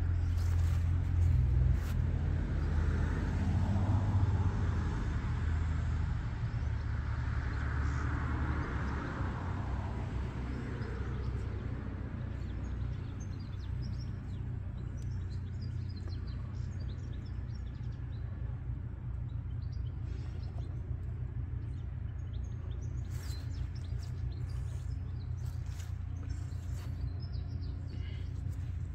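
Outdoor ambience: a steady low rumble, louder for the first ten seconds or so, with small birds chirping through the second half.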